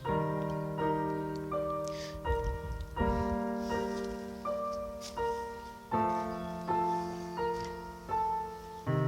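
Background piano music: a slow melody of single notes over a held low note that changes about every three seconds.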